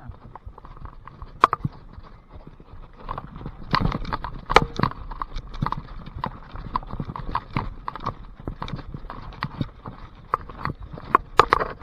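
Mountain bike rattling over a rough, muddy trail: irregular clicks and knocks, a few louder jolts among them.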